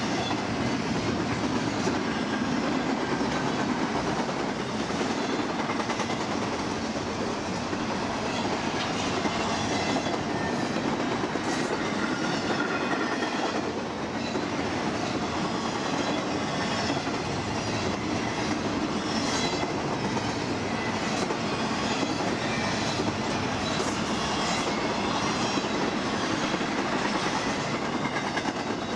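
BNSF freight train rolling past at track level: a steady rumble of steel wheels on rail, with scattered clicks as the cars go by.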